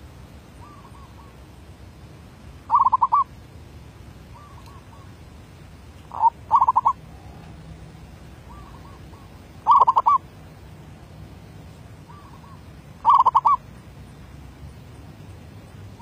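Zebra dove (merbuk) cooing: four loud, rapid, stuttering coo phrases about three and a half seconds apart, with a soft, quiet coo between each.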